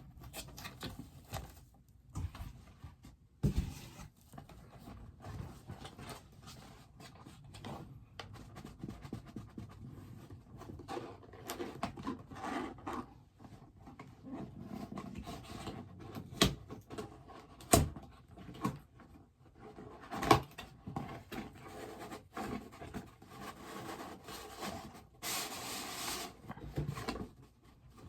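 A cardboard box and its packaging being handled and opened by hand: rustling and rubbing, with a few sharp knocks as the box is set down or bumped, and a hissing scrape about a second long near the end.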